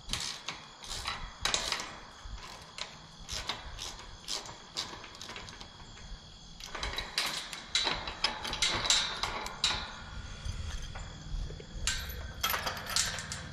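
Steel farm gate hardware being handled: irregular metal clinks, scrapes and rattles from the gate frame, hinge and a hanging chain, busier from about seven seconds in.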